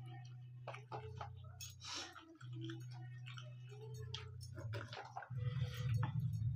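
Close-up eating sounds of people eating rice and curry with their hands: scattered wet mouth smacks and chewing clicks, with fingers working rice on steel plates, over a low steady hum.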